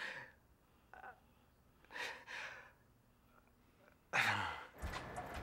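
A man breathing out in a few short, breathy huffs about a second apart, the last one voiced and falling in pitch. Just before the end a low steady background hum comes in.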